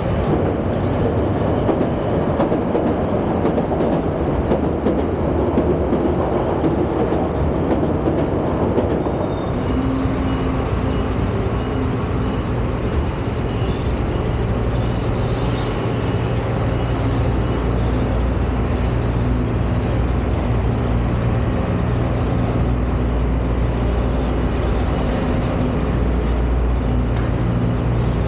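A train running along the tracks with a broad rumbling rail noise. About ten seconds in, this settles into a steady low hum.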